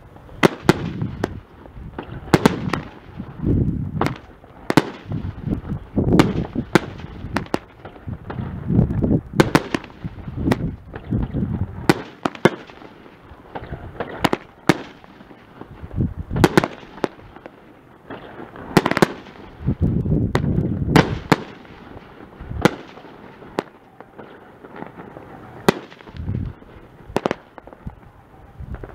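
Great Grizzly 'Ammo Box' 500-gram repeater cake firing, two units at once: a long run of sharp bangs, about one or two a second, over low booming.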